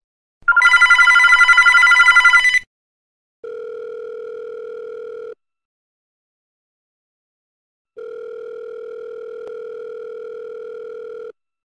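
A landline desk telephone rings once with a loud, fluttering electronic trill. Then a lower, steady ringing tone sounds twice, about two and three seconds long: the ringback a caller hears in the handset while the line rings.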